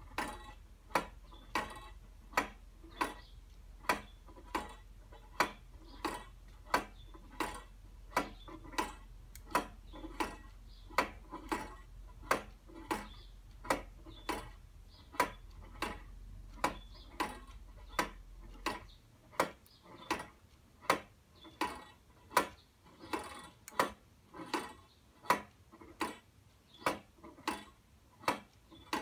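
Adjustable clock escapement made from worn bicycle cassette sprockets and chain, driven by a weight, ticking steadily: sharp metallic ticks about three every two seconds.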